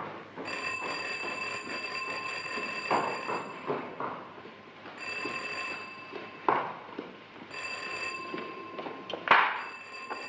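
An electric alarm ringing in on-and-off bursts of a steady shrill tone, each burst two to three seconds long, with short breaks between. Several sharp knocks sound in the gaps, the loudest about nine seconds in.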